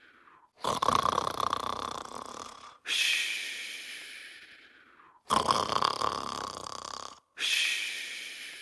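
Snoring in an even, repeating cycle: a rough, rasping snore on the in-breath, then a long hissy out-breath that fades away. The cycle comes twice, about every four and a half seconds.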